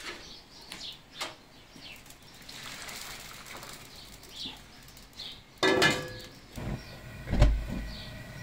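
Hot liquid poured from a metal pot into a paella pan of simmering seafood, with a steady hissing pour. Past the middle, the metal pot clangs and rings against the pan, followed by knocks and a heavy thump as it is set down.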